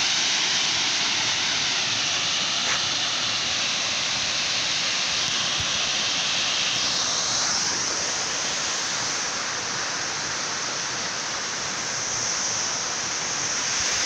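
Tall waterfall pouring into a pool: a steady rushing of falling water, changing slightly in tone about seven seconds in.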